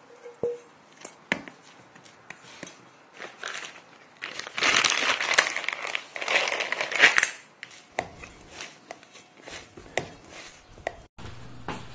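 A plastic bowl cover crinkling loudly as it is handled over a stainless steel mixing bowl, after a few light knocks of the bowl on a wooden table. Near the end, softer clicks and squelches of hands working bread dough in the bowl.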